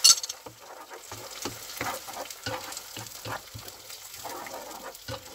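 Thick tomato sauce glugging and plopping out of a bottle into a frying pan of sautéed garlic, onion and parsley. It starts with a brief loud hiss, then irregular plops as the sauce lands, over a faint sizzle.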